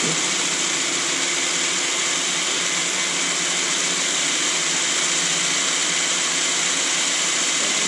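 Cordless drill running steadily under load, boring a hole through a BMW E36's trunk lid.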